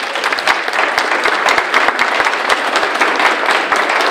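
Audience applauding steadily in a large hall, many hands clapping at once.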